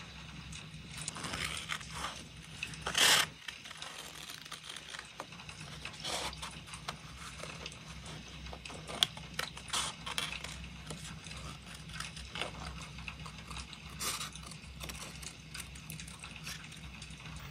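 Small scissors cutting printed paper in separate snips, with paper rustling and handling between them; the loudest snip comes about three seconds in. A faint steady low hum lies underneath.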